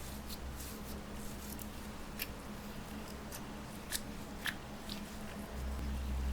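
Slime being worked by hand, giving scattered sharp clicks and crackles, the strongest about two, four and four and a half seconds in. A low rumble of handling noise swells near the end.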